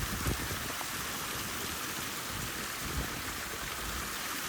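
Steady hiss of water splashing and running in a pond's filtration loop.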